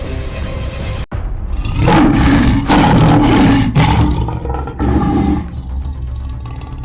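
A lion roaring and snarling in several loud, rough blasts from about two seconds in until past five seconds, over background music.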